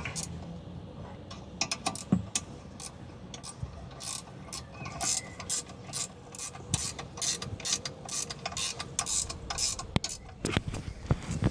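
Ratchet wrench clicking steadily, about two sharp clicks a second, as the rear brake caliper bolts are tightened back up.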